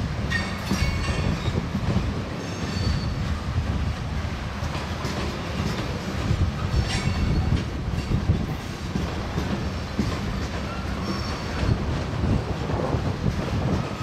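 Norfolk Southern freight train rolling past with a steady low rumble. The wheels give several short, high-pitched squeals, about a second in, around a third of the way through, near the middle and again later.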